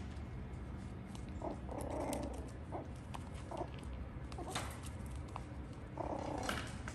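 Six-week-old miniature schnauzer puppies playing, with two short bouts of play growling, about two seconds in and near the end, among light scratches and clicks.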